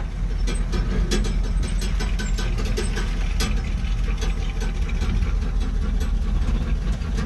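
Jeep J20 truck's engine running with a steady low rumble while it drives, with scattered clicks and rattles.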